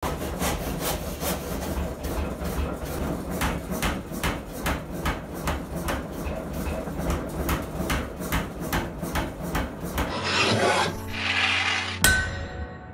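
An old self-contained air power hammer, an Alldays & Onions, running and striking a hot steel bar in rapid repeated blows, about three to four a second, over the steady hum of its motor. Near the end the blows stop and a rising whoosh leads into a single sharp ringing metallic clang.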